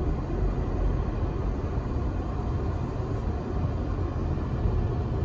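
Steady low rumble of a car driving on town streets, heard from inside the cabin: engine and tyre noise with no distinct events.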